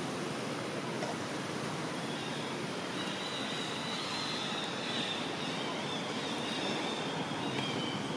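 Steady, even outdoor background noise, with a faint high-pitched tone from about two seconds in until near the end.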